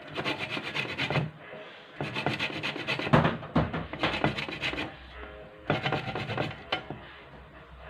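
Lemon rind being rasped across the fine side of a hand grater in quick, rapid strokes, in three spells with short pauses between them: zesting only the yellow peel.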